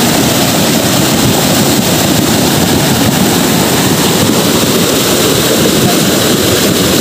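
Loud, steady rushing of a flash-flood torrent, churning floodwater pouring past without a break.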